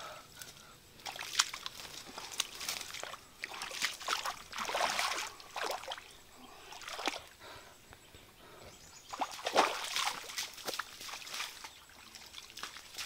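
Shallow muddy water sloshing and splashing irregularly as a person wades and works in it, with a few short swishes and small knocks.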